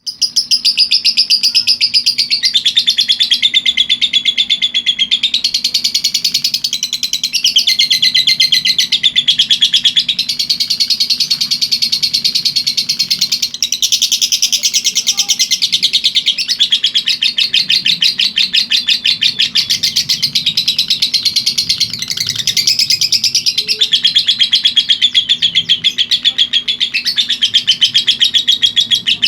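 Lovebird singing a long, unbroken chatter: a fast string of shrill, high notes that runs on with only a few short breaks.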